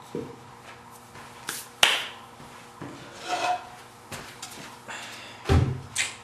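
Wooden jig parts being handled and set down on a workbench: a series of knocks and taps, the sharpest just under two seconds in, with a heavier thud and another knock near the end.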